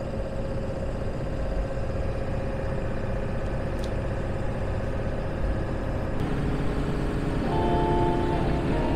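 Cab noise of a Ford E450 diesel truck cruising at highway speed up a long hill: steady engine drone and road rumble, with a steady tone running through it until about six seconds in. Music fades in near the end.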